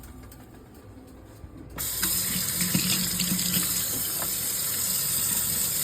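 Kitchen tap turned on about two seconds in, water then running steadily into the sink.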